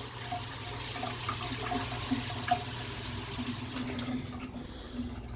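Water from a ceiling-mounted shower head pouring down onto the shower floor as a steady hiss, which dies away about four seconds in.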